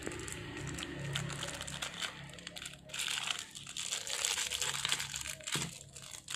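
Plastic packaging crinkling and rustling as it is handled, louder over the second half.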